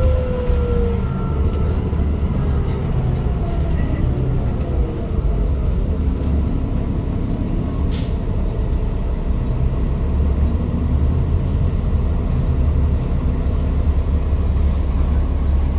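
Inside a moving 2012 New Flyer D40LFR diesel bus: the Cummins ISL9 engine and driveline run steadily under a low rumble of road noise. A whine falls in pitch and fades in the first second, and one sharp click comes about halfway through.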